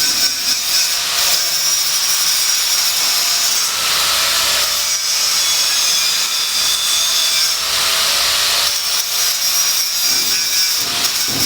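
A power tool cutting or grinding: a loud, steady, harsh rasp with a high whine.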